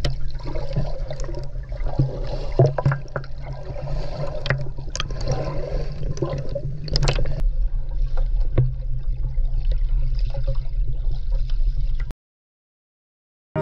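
Water sloshing and gurgling close to the microphone, with scattered sharp splashes over a steady low rumble. The sound cuts off abruptly near the end.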